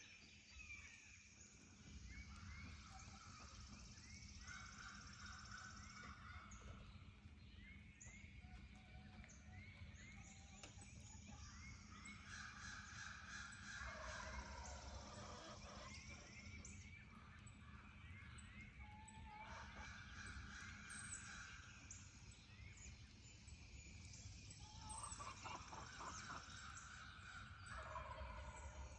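Male wild turkeys (gobblers) gobbling, faint, in several separate bouts: the spring breeding-season call of the toms.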